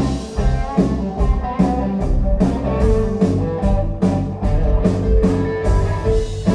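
Live band playing amplified: electric guitars over a drum kit keeping a steady beat.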